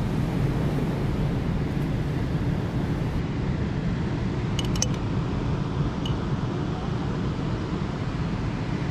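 Steady low rumble of surf and wind on the microphone, with a few faint clicks about halfway through.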